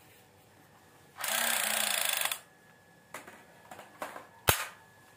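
Battery-powered plastic toy submachine gun firing: a rapid mechanical rattle lasting about a second. This is followed by a few light plastic clicks and knocks from toys being handled, with one sharp knock near the end.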